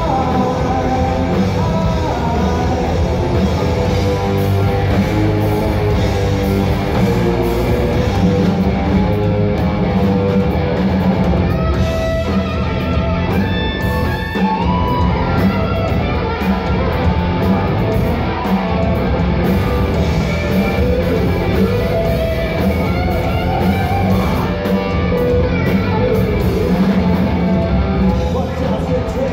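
Rock band playing live: electric guitars, bass and drum kit, loud and steady without a break.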